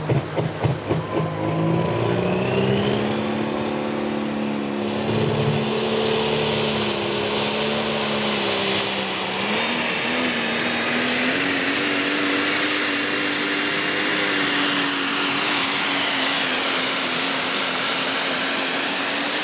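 Diesel pickup truck engine at full throttle, pulling a sled: a loud, steady engine note whose pitch climbs slowly and steps up about ten seconds in, with a high whine rising above it. The first second throbs unevenly as the truck bounces under load.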